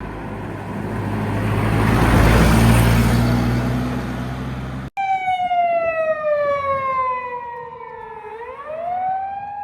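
A vehicle's engine and tyres pass close by, loudest about two and a half seconds in. After a sudden cut, an emergency vehicle siren wails, its pitch sliding slowly down, then rising again and holding near the end.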